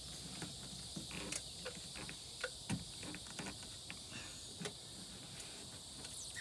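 Faint scattered clicks, taps and rubbing of a plastic wind deflector being pressed and worked into a van door's window channel and weather strip.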